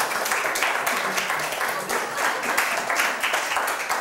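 Audience applause: many hands clapping together, loud and continuous.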